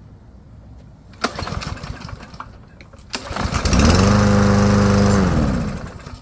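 Recoil starter pulled twice on a Troy-Bilt TB110 mower's Briggs & Stratton 550EX 140 cc single-cylinder engine. The engine catches on the second pull, runs steadily for under two seconds, then slows and stops. It is freshly fitted with a new spark plug and air filter.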